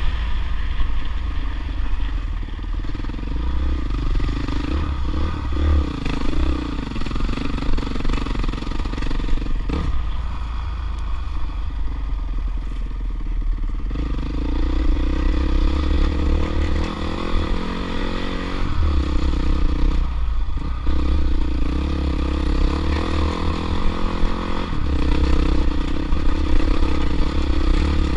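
Dirt bike engine running as it is ridden along a rough trail, the revs rising and falling with the throttle.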